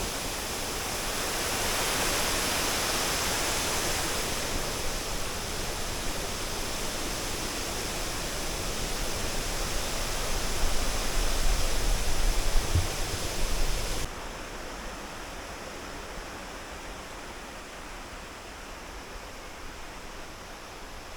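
Steady rush of a waterfall and creek in full flow. About fourteen seconds in it drops suddenly to a quieter, duller rush.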